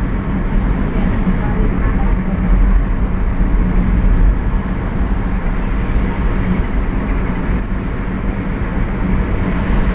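A vehicle travelling on the road: steady engine and road rumble, with a thin high whine above it that drops out briefly about two seconds in.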